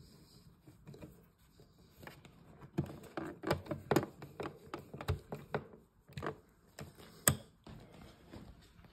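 Screwdriver driving a screw into a plastic switch cover plate: a run of small clicks and scrapes starting about three seconds in, with one sharp click near the end.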